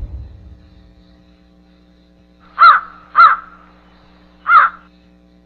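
A bird call given three times: two calls close together about two and a half seconds in, then a third about a second later. A steady low hum runs underneath.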